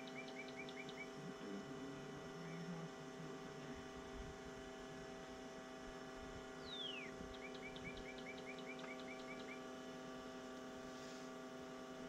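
A steady hum made of several held tones, with a songbird singing over it twice: a quick falling whistle followed by a rapid string of short chirps.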